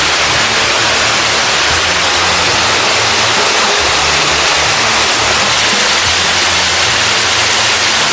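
Background music with a low bass line over a loud, steady rushing of water, which cuts off abruptly at the end.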